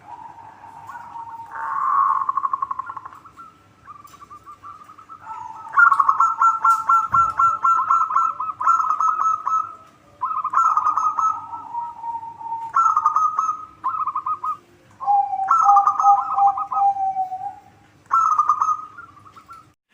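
Zebra doves (perkutut) cooing: repeated phrases of rapid staccato notes over a lower drawn-out note, with short gaps between phrases.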